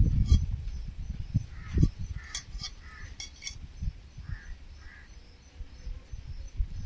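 Quiet outdoor background: a low rumble that fades after about two seconds, then a few faint clicks and faint distant bird calls.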